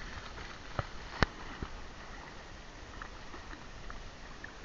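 A dog splashing through shallow river water at the start, then low water noise with three sharp knocks about a second in, the middle one loudest.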